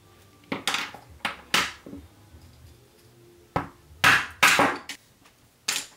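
A tube of Arundo donax cane cracking as it is split lengthwise into four segments: several sharp cracks, each with a short splintering rasp. They come in a group in the first two seconds, a louder group a little past the middle, and one more near the end.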